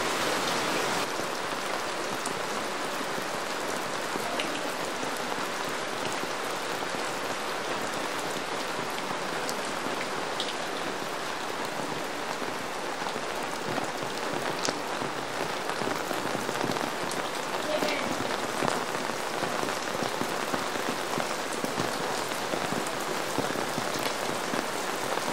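Steady rain falling, an even hiss with a few sharper drop taps here and there.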